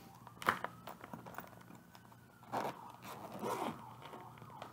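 A clear plastic zip-top bag of yarn crinkling and rustling as it is handled and pulled open, with a sharp click about half a second in and crinkly rustles about two and a half and three and a half seconds in.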